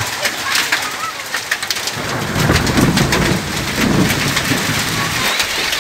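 Hail and rain pelting the ground: a steady hiss full of sharp, rapid ticks from hailstones striking. A roll of thunder rumbles low underneath from about two seconds in until near the end.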